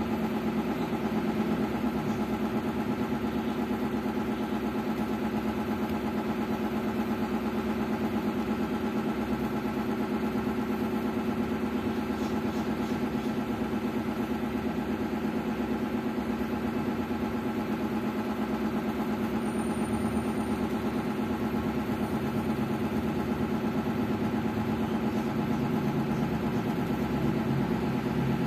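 Steady mechanical hum of a running motor, unchanging, with several fixed tones.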